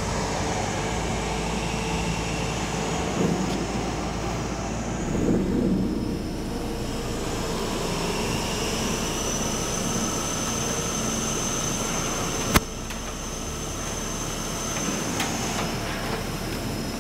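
Heavy machinery running steadily with a high whine, as a cement mixer truck on a stunt rig is tipped over, and one sharp crack about twelve and a half seconds in.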